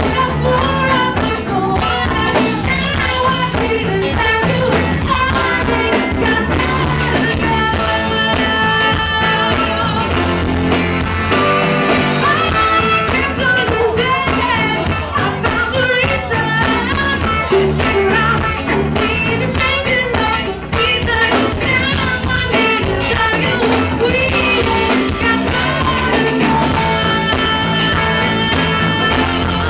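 Live funk band playing through a PA, with women singing over electric guitar, bass and drums to a steady beat.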